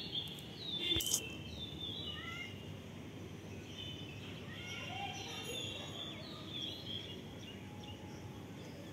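A few faint, short high calls over steady outdoor background noise, with a soft click about a second in.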